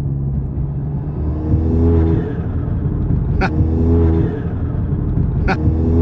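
Turbocharged Audi engine with an IS38 turbo accelerating in bursts, its note rising, then lifting off the throttle twice, with a sharp crack at each lift-off about two seconds apart.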